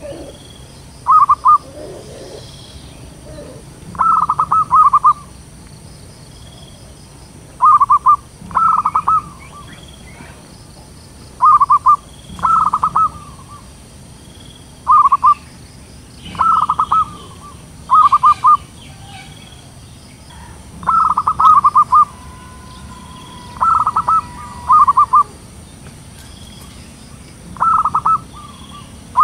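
Zebra doves cooing: short phrases of rapid staccato notes, repeated every two to four seconds, some phrases coming in pairs.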